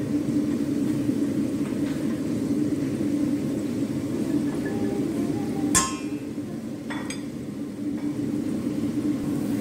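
A utensil clinks sharply against the side of a stainless steel pot of melting butter about six seconds in, with a lighter clink about a second later, over a steady low hum.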